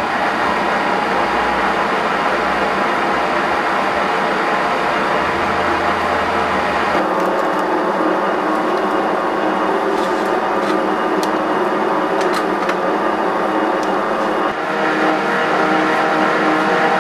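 Chinese bench lathe running under power, its motor and headstock gears giving a steady mechanical whir as the chuck spins. The tone shifts about seven seconds in and again near the end, with a few light ticks in between.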